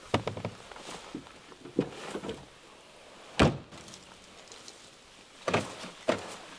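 Tailgate of a Volkswagen New Beetle shut with one solid thunk about three and a half seconds in, after a few lighter knocks and rattles of gear being lifted out of the boot. Footsteps on dry leaf litter begin near the end.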